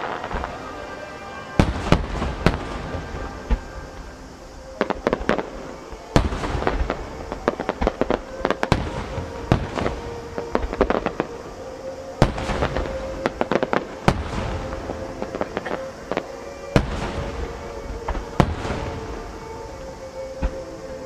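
Fireworks display: aerial shells bursting in rapid clusters of sharp bangs and crackle, with music playing underneath.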